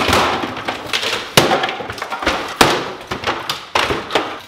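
Sledgehammer smashing into wooden kitchen wall cabinets: four heavy blows about a second apart, each followed by a clatter of breaking wood and falling pieces.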